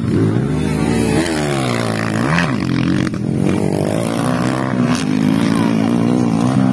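Several motocross dirt bike engines revving out on the track, their pitch repeatedly climbing and dropping as the riders work the throttle.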